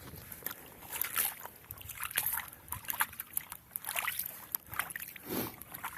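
Water sloshing and splashing irregularly in a freshly punched hole through river ice, in a series of short swishes.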